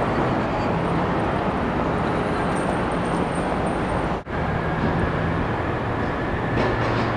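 Steady outdoor city noise, a dense rumbling hiss like distant traffic, that cuts out for an instant about four seconds in.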